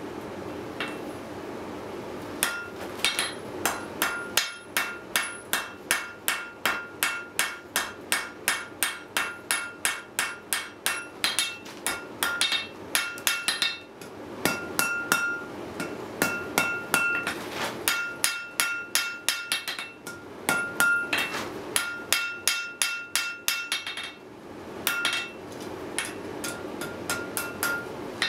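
Blacksmith's hand hammer striking hot steel on an anvil while forging a J-hook, each blow followed by a clear metallic ring from the anvil. A fast, even run of about two to three blows a second is followed by shorter groups of blows and a brief pause near the end.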